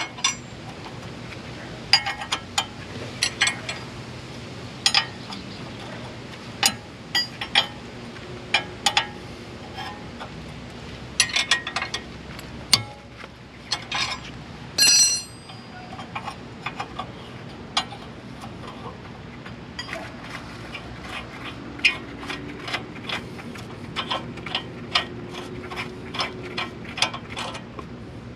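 Scattered metallic clicks and clinks of hand tools and brake parts being handled during brake pad removal, with one brief ringing metal clink about halfway through.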